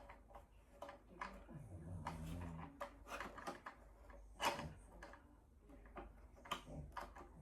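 Scattered light clicks and knocks from handling an automatic pond fish feeder and its parts, the sharpest about four and a half seconds in.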